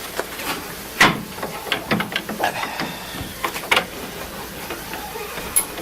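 Scattered metallic clicks and knocks from the parts of a furnace oil burner being handled and fitted back together, the loudest about a second in, over a steady background hiss.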